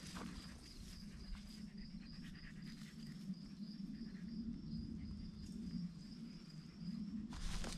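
Insects chirping steadily in a high, evenly pulsing trill, with faint scuffs of hiking shoes stepping on rock.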